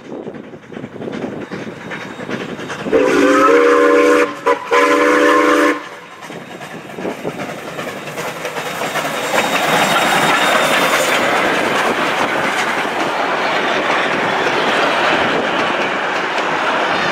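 Ex-South Australian Railways RX-class steam locomotive (RX207) sounding its chime steam whistle in two long blasts, barely separated, about three seconds in. It then runs past hauling its carriages: the train noise builds and settles into a steady clatter of wheels over the rail joints.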